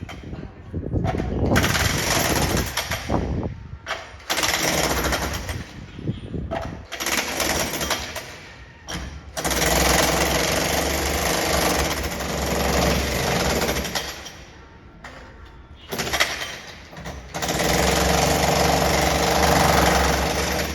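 Jackhammer chiselling up a concrete floor during a neighbouring flat's renovation, carried through the building. It hammers in bouts of one to four seconds with short pauses between them, over a steady low rumble.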